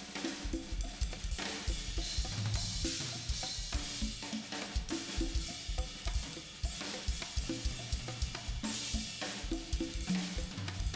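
Music led by a drum kit: a busy pattern of snare, bass drum and cymbal strokes over a low bass line.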